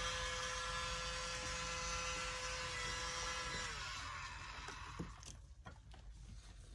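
Small electric mini blower running with a steady whine, then switched off and dying away about four seconds in; a couple of light clicks follow.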